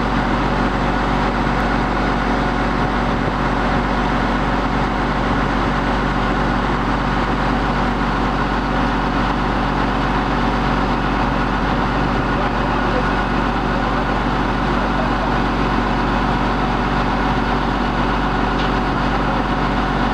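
A steady, unchanging engine drone, like a motor running at constant speed.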